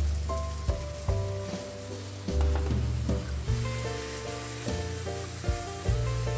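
Spinach and onion sizzling in a hot frying pan as they are stirred with chopsticks and milk is added a little at a time, a steady high hiss. Background music plays underneath.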